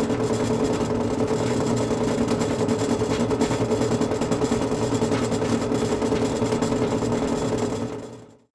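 Industrial machine running steadily: a constant hum under a broad mechanical rush, fading out near the end.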